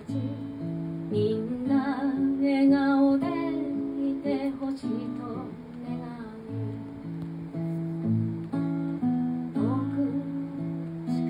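Acoustic guitar strummed in steady chords, with a woman singing over it in a held, wavering voice.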